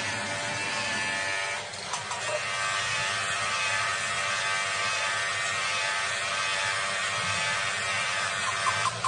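Handheld angle grinder with an abrasive wheel running against the chromed steel rod of a hydraulic cylinder: a steady motor whine with a grinding hiss. It dips briefly about a second and a half in, then carries on steadily.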